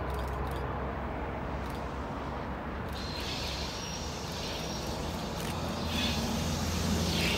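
Diesel locomotive-hauled train approaching. The locomotive's engine is a steady low drone that grows louder near the end, with a higher hiss of wheels and rails rising from about three seconds in.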